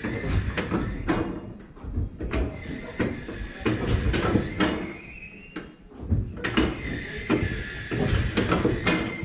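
Steel wheels of a towed, unpowered streetcar rolling slowly on the carbarn track, with irregular clunks and knocks and thin wheel squeals that slide up and down in pitch.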